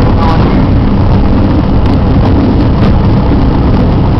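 Cabin noise inside a Piper PA-28-161 on landing: the four-cylinder Lycoming engine and propeller droning steadily, mixed with airflow noise.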